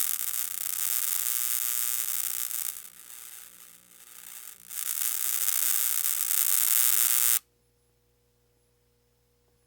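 Shorted electrical wiring arcing, a harsh sizzling electrical buzz. It weakens to a sputtering crackle for a second or two in the middle, flares back up loud, then cuts off abruptly about seven and a half seconds in, leaving only a faint hum.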